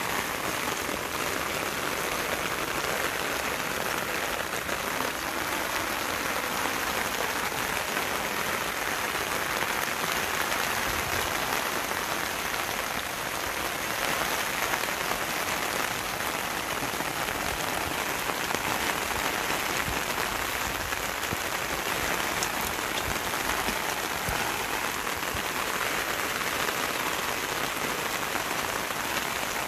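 Steady rain falling on garden leaves, grass and ground: an even hiss of many droplets striking wet foliage.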